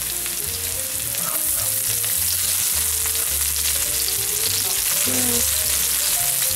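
Minced garlic and sliced jalapeño sizzling in hot oil in a nonstick wok, a steady hiss, with the scrapes and taps of a slotted spatula stirring them.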